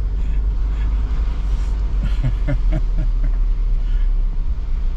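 Steady low rumble of a vehicle driving, with a short bit of voice about two seconds in.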